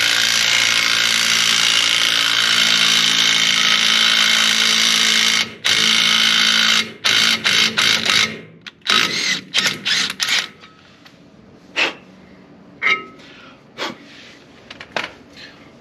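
Impact wrench running a lug nut down a new ARP wheel stud to draw the stud into the hub: one long steady run of about five and a half seconds, then a series of short bursts. Quieter clicks and handling follow near the end.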